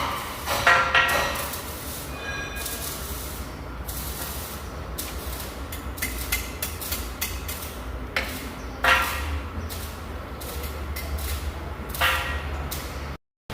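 Metal clanks and knocks from heavy workshop work, several sharp strikes, some ringing briefly, over a steady low hum.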